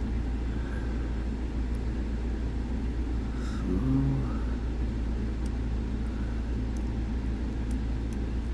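Faint, scattered metallic ticks of a lock pick working the sliders of an M&C Condor dimple-pin lock, over a steady low background rumble. A brief low hum comes about four seconds in.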